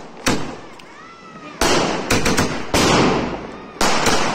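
Fireworks going off: a string of sharp bangs, about seven in all, several in quick succession around two seconds in, each trailing off into a crackle.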